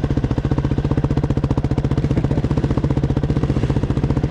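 Off-road motorcycle engine running steadily at low revs, a rapid, even chugging of firing pulses.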